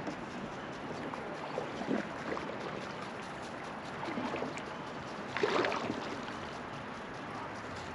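Truckee River water flowing and lapping around a floating raft, with a few louder splashes, the largest about five and a half seconds in.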